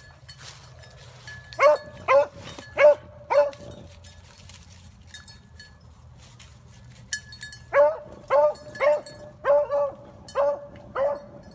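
Beagle barking as it hunts a rabbit alone: four barks about two seconds in, then a longer, quicker string of barks from about eight seconds on.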